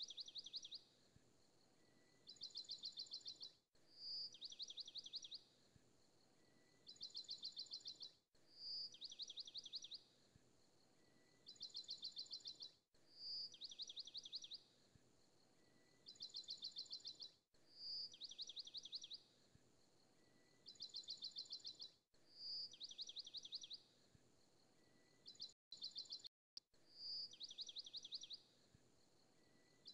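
Quiet, high, bird-like chirping: a rapid trill of about a second comes roughly every two seconds, with a short single chirp before every other one, the pattern repeating exactly every four and a half seconds like a loop.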